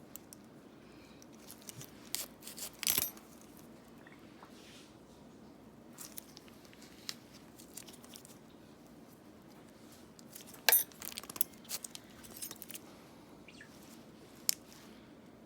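Small metal pedicure instruments clicking and scraping in scattered bursts while thick dry skin is worked off a foot, over a steady low hum.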